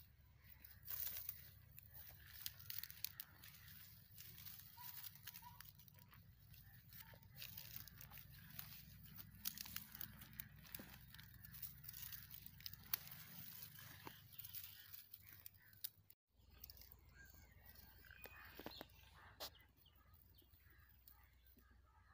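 Faint crackling, tearing and crunching as garlic plants are dug out with a hand tool and pulled from dry, weedy soil: dry stalks and roots snapping and earth crumbling, in many small irregular crackles.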